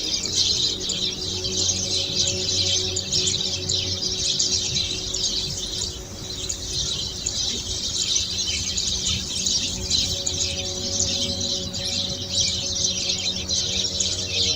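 Dense, continuous chirping of many birds at once, a busy chorus of quick overlapping high calls.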